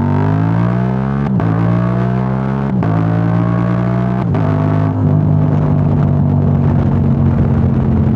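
Yamaha R7's 689 cc parallel-twin engine through a Yoshimura AT2 full exhaust, accelerating through the gears: the revs rise and drop at each of several quick upshifts about every second and a half, with the brief ignition cut of a quickshifter. From about five seconds in it holds a steady pitch at cruise.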